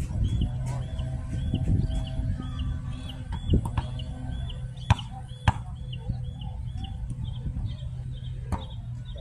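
Basketball bouncing on an outdoor hard court: a few sharp, separate thuds, the loudest two about half a second apart around the middle. Behind them a bird repeats a short chirp about twice a second, over a steady low rumble.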